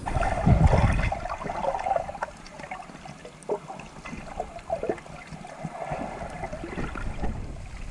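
Water heard from below the surface through an underwater camera: a muffled rush of moving water in the first second or so, then a quieter wash with scattered faint clicks and crackles.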